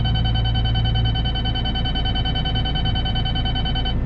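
A steady electronic beep tone from the Cat 313 excavator's in-cab grade-control system, held for about four seconds and cutting off near the end, over the excavator's diesel engine running. The tone signals that the bucket has reached the set target grade.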